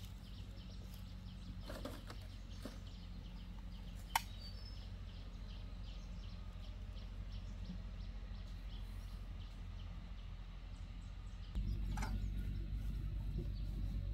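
An engine running steadily with a low hum and a light, fast ticking. There is one sharp click about four seconds in, and the engine grows louder about two seconds before the end.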